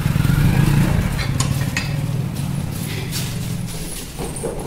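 A motor vehicle's engine running with a low, fast-pulsing rumble that fades away over about four seconds.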